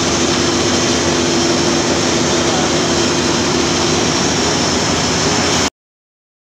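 Engine-room machinery of a bulk carrier running: a loud, steady din with a steady hum under it. It cuts off suddenly to silence about a second before the end.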